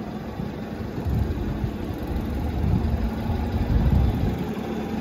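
A vehicle engine idling: a low, steady rumble with a faint hum, growing a little louder about a second in.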